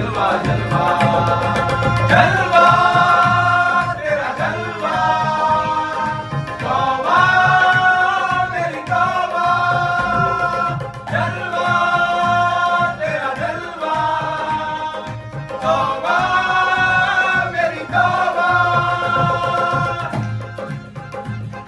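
Men singing a Hindi patriotic song together with harmonium and a percussion beat, the melody returning in phrases about every five seconds.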